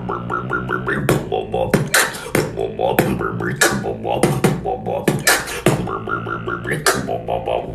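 Beatboxing: sharp mouth-made snare and hi-hat hits in a steady rhythm over pitched vocal bass and hummed notes.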